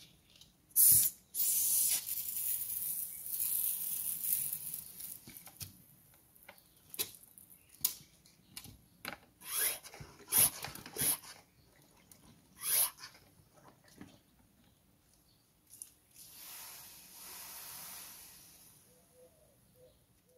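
Hand-pumped garden pressure sprayer hissing as it sprays through its lance nozzle under the pressure just pumped into the tank, atomising well: one spray of a few seconds, then a string of short bursts, and a fainter spray near the end.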